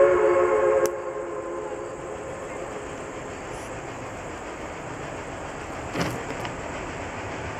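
Chime steam whistle of Reading & Northern steam locomotive 425, several notes sounding together, ending about a second in. After it, the steady rumble of the unseen train getting under way with its passenger excursion.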